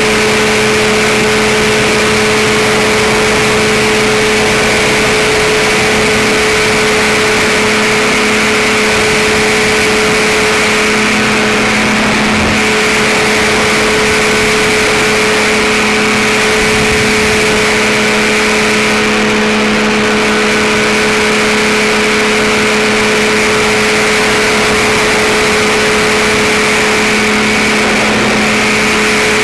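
Powered parachute's engine and propeller running steadily at takeoff power through the ground roll, liftoff and climb-out. It is a loud, even drone holding one pitch, heard close to the engine from the pilot's seat.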